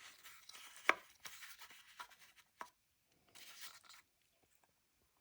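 Light handling noises as the coin is turned over to show its other side: soft rustling with a sharp click a little under a second in and a few smaller clicks, then a short rustle before it goes quiet.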